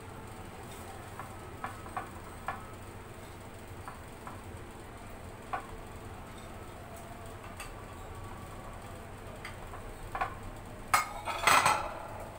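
Light scattered clinks of a ceramic plate against a glass baking dish as French fries are tipped in, then a louder clatter of dishes about eleven seconds in as the plate is put down.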